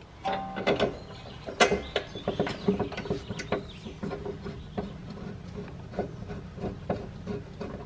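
Scattered light clicks and knocks of metal parts as an Eibach Pro-Damper rear shock absorber is worked into its lower mount and the bottom bolt fitted by hand, over a faint steady hum.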